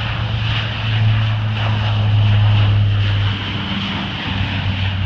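C-130 Hercules four-engine turboprop taking off: a steady low propeller drone with a hiss above it, loudest from about a second in and easing a little after about three seconds as the aircraft climbs away.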